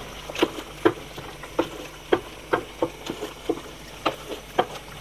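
Wooden spoon stirring beef masala with its cooking liquid in a large aluminium pot. The spoon knocks against the pot about twice a second, over a faint steady hiss.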